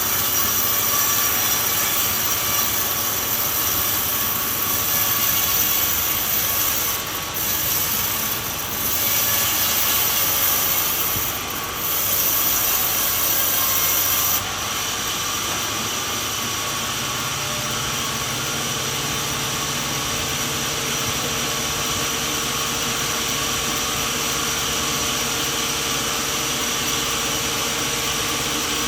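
Sawmill running with its saw cutting through a coconut log, a loud steady mechanical noise with a bright hiss on top. About halfway through, the high-pitched cutting sound stops suddenly, leaving the machine running on with a steadier, lower hum.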